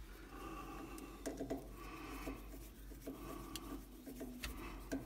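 Faint scraping and small clicks of a screwdriver turning the cable clamp screw on an immersion heater's wiring head, beside its thermostat.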